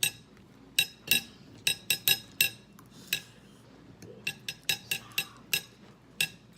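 Cutlery clinking and tapping against plates during a meal: a string of sharp, ringing clinks in irregular clusters.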